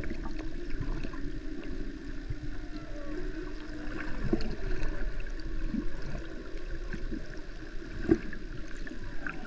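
Humpback whale song heard underwater, faint at this point: soft low moans that bend up and down over a steady low tone, against a wash of water noise with scattered clicks and one sharper click near the end.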